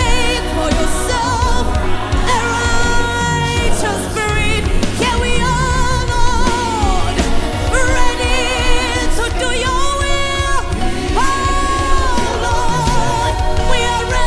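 Worship song: a solo voice sings long, wavering held notes over steady musical accompaniment.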